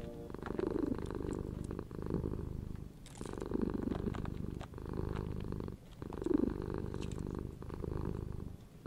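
Ginger kitten purring steadily, in stretches of about a second or so, each broken by a short pause for breath.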